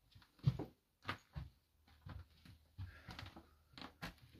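Irregular footsteps crunching over debris on the floor of a train carriage corridor, a short gritty crunch every half second or so, the loudest about half a second in.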